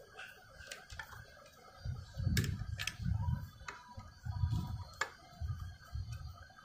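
Scattered sharp metal clicks and low dull bumps of hands working on a sewing machine, taking off its cover plate to reach the presser foot lifter.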